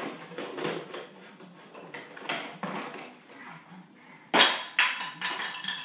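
Plastic toys clattering and knocking on a hardwood floor, with a sharp clatter about four seconds in followed by a few smaller knocks.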